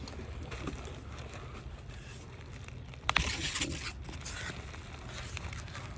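Packaging being handled and opened: faint rustling, with a louder scrape or tear of plastic wrapping about three seconds in and a shorter one about a second later.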